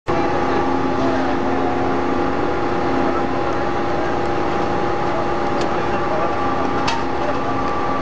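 Heavy machinery running steadily: a Y81-3150 hydraulic scrap metal baler and the excavator feeding it, a constant drone with several steady tones. A few sharp metal clanks from the scrap come about five and a half and seven seconds in.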